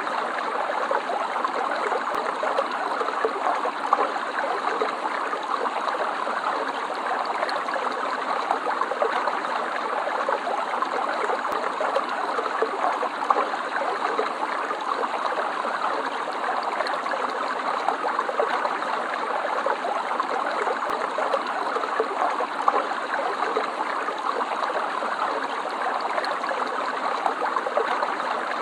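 A stream of water running and trickling over stones, a steady babbling with fine splashing detail and no change in level.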